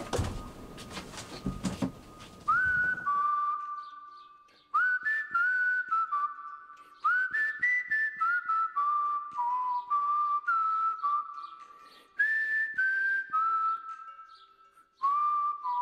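A few knocks and rustling, then a whistled melody from about two and a half seconds in. The tune is made of single held notes that slide up into pitch, in short phrases with brief pauses between them.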